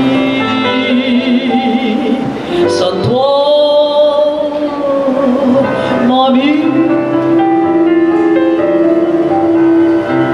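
Woman singing a chanson live through a microphone over instrumental accompaniment, with long held notes; the last one is held from about six seconds in almost to the end.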